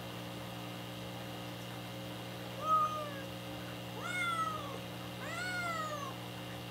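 A two-month-old black kitten meowing three times: a short falling cry, then two longer cries that rise and fall. The owner wonders whether this constant meowing is due to the unfamiliar place or the kitten looking for its mother.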